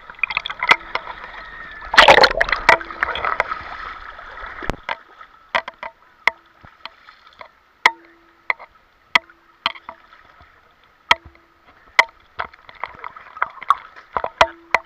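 Seawater sloshing and splashing around a camera held at the waterline, with sharp ticks of water hitting it. A loud rush of splashing comes about two seconds in and lasts a couple of seconds. After that, scattered clicks and light lapping remain.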